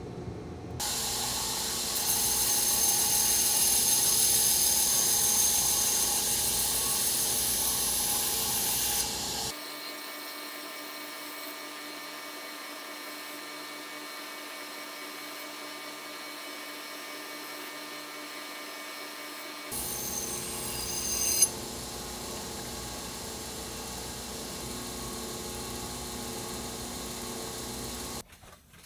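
Belt grinder running while a carbon-steel knife blade made from a leaf spring is ground against the belt, a loud hissing grind from about two seconds in to about nine seconds and again briefly about twenty seconds in. Between the grinds the machine runs steadily and more quietly, and it cuts off just before the end.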